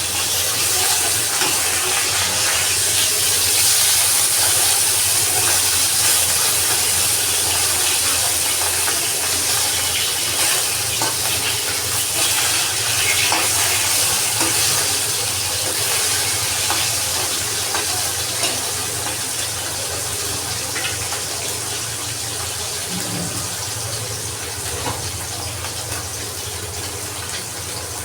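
Food sizzling as it fries in hot oil in a pan: a steady hiss with small scattered crackles, slowly dying down.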